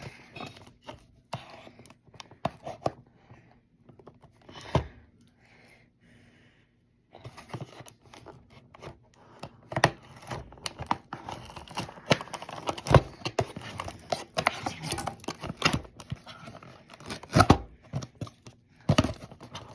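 Product packaging being torn and crinkled open by hand: irregular ripping and crackling with sharp knocks and handling noise, a brief pause about six seconds in, then busier and louder tearing.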